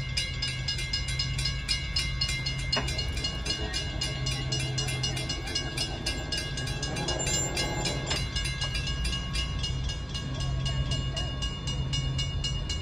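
Grade-crossing warning bell ringing in rapid, even strikes as the crossing signals are activated for an approaching train, over a low engine rumble.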